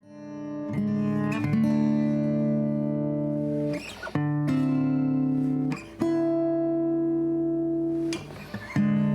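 Instrumental guitar music: held chords that fade in at the start and change every second or few.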